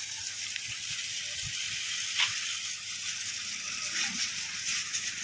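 Water from a hose spraying onto a bicycle as it is washed: a steady hiss of spray.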